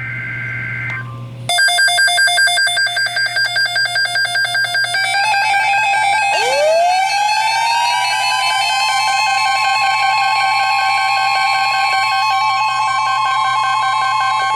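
Electronic emergency-alert tones. Brief high tones in the first second, then a loud pulsing alarm tone at about four to five pulses a second. About six seconds in, a siren-like tone rises in pitch and holds steady over it.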